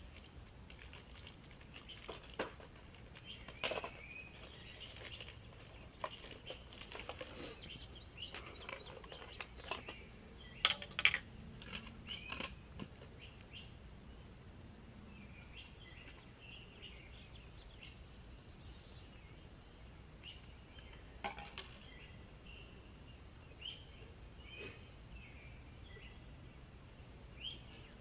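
Scattered clicks and rustles of new motorcycle brake pads and their plastic packet being handled and laid on paper, the loudest clicks coming about eleven seconds in, over faint bird chirps.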